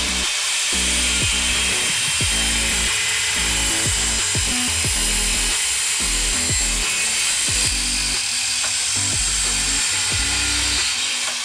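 Angle grinder cutting into a metal water pipe clamped in a vise, a steady high grinding. Electronic background music with a steady beat plays under it.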